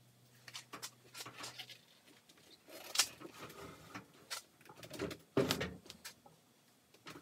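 Handling noise of gloved hands working around a Grizzly G0463 benchtop mill and its cables: scattered clicks, knocks and rustling, with a sharp click about three seconds in and a heavier thump a little after five seconds. A low steady hum stops about two seconds in.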